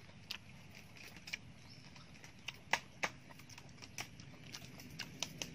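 A person eating with his mouth: irregular wet smacks and clicks of chewing and lip-smacking, with the loudest pair about three seconds in.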